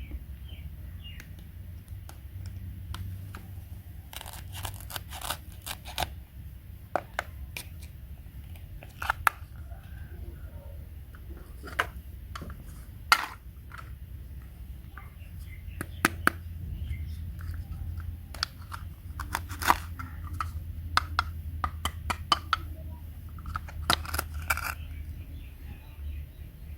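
Scattered sharp clicks and taps of small objects being handled, over a steady low hum.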